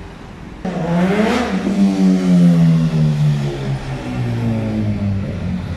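Minibus engine driving past close by. The sound starts abruptly about half a second in; the engine note climbs briefly, then falls steadily over several seconds as the vehicle goes by.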